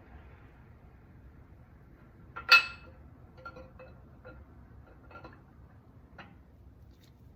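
A sharp metal-on-metal clink, ringing briefly, about two and a half seconds in, followed by several lighter clicks and clinks of metal engine parts and tools being handled.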